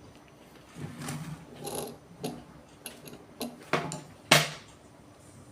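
Small switches and tools being handled on a hard surface: a string of irregular knocks, clicks and short rubbing scrapes, about seven in all, the loudest a sharp knock about four and a half seconds in.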